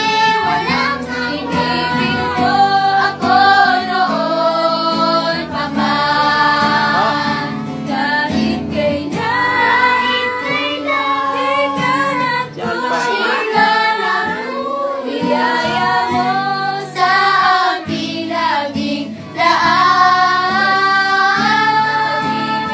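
A group of children and young women singing a Tagalog worship song together, accompanied by an acoustic guitar.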